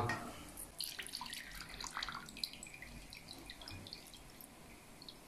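Hot chili oil being poured through a fine mesh strainer, trickling and dripping into the bowl below with faint crackles, which thin out after about three seconds.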